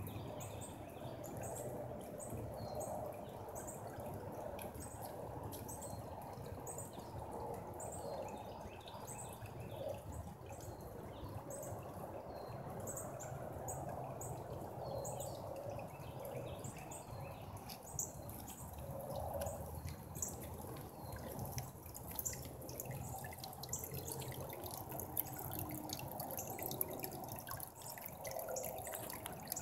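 Water trickling and dripping steadily into a small garden pond from a rock waterfall, with a bird chirping over and over.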